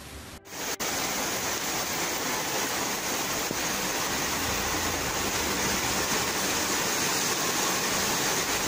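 Fast floodwater rushing through a washout in a steady, loud, unbroken noise, starting suddenly about half a second in.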